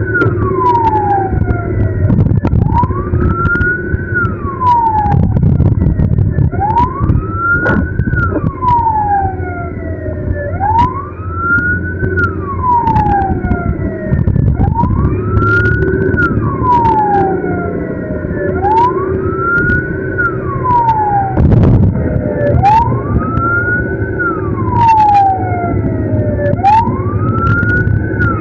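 Ambulance siren on a slow wail, rising and falling about every four seconds, over the ambulance's engine and wet-road noise, with scattered sharp ticks.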